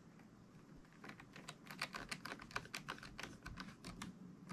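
Precision screwdriver driving a small screw into a laptop's metal bottom cover: a fast run of light clicks, about six a second, starting about a second in and stopping near the end.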